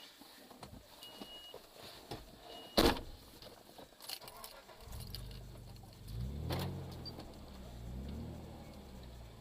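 A 1996 Nissan Pathfinder's engine revving up and down under load as the 4x4 works through a deep rut, starting about five seconds in. A single sharp knock about three seconds in is the loudest sound.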